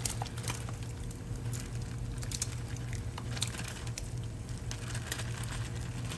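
Cooked red kidney beans tipped from a plastic zip bag into a pot of hot water, falling in with scattered soft pattering plops. A steady low hum runs underneath.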